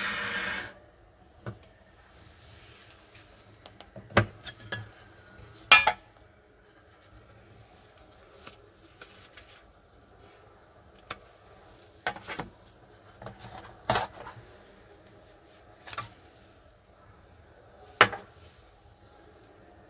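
Light clinks and knocks of small hard objects being handled on a hard surface: about eight short, separate strikes spread irregularly through the stretch, with quiet between them.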